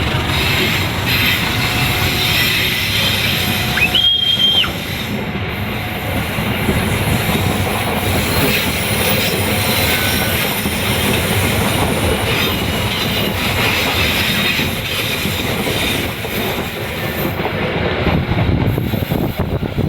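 A train running past on the rails, its wheels and cars making a loud, continuous rumble and clatter. About four seconds in there is a brief high-pitched wheel squeal.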